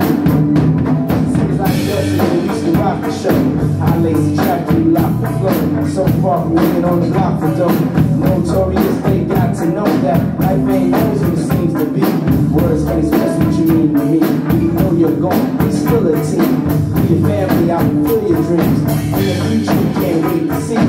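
Acoustic drum kit played live along to a recorded pop song, a steady beat of kick, snare and cymbals over the track's music.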